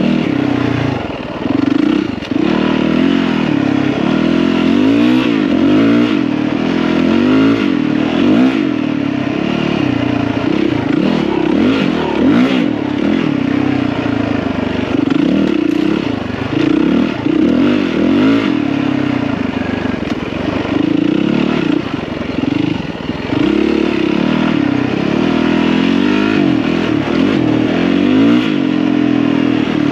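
Yamaha WR450F dirt bike's single-cylinder four-stroke engine under way on a trail ride. The revs rise and fall every second or so as the throttle is worked, easing off briefly about a second in and again about two-thirds of the way through.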